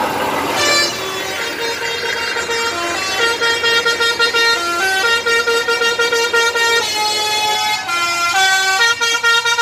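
A truck's musical air horn plays a tune made of quickly repeated notes that step up and down in pitch, starting about half a second in.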